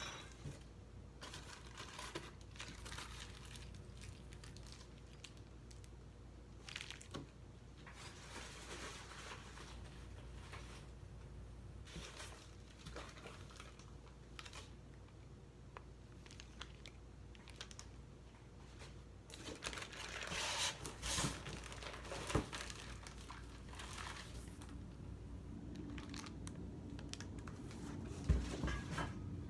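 Ceiling-fan packing materials being handled while unboxing: intermittent crinkling, rustling and tearing of wrapping and cardboard. The rustling grows louder about two-thirds of the way through, and there is a dull thud near the end.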